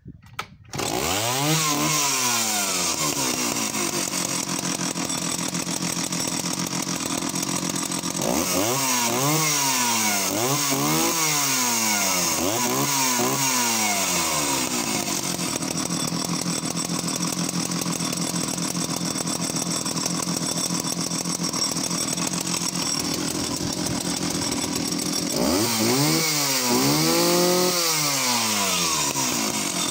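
Danarm 71SS vintage two-stroke chainsaw pull-started, catching almost at once, then running in the air and revved up and back down in short bursts, several times near the middle and twice near the end, settling back to a steady run between.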